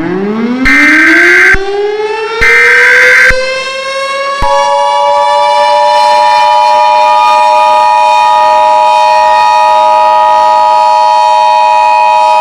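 Emergency Alert System tones: two short buzzy data bursts of the alert header sound while a civil defense siren winds up, rising in pitch over about four seconds. About four seconds in, the two-tone EAS attention signal starts and holds steady over the siren, announcing an emergency alert.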